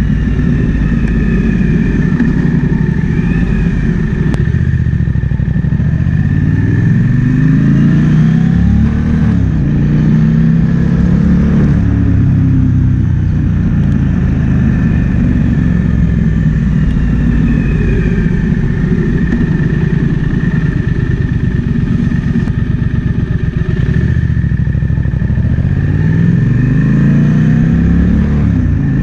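Triumph Speed Twin 1200's parallel-twin engine running under way, its pitch rising and falling with throttle and gear changes, several times climbing as the bike accelerates. Wind rushes over the microphone throughout.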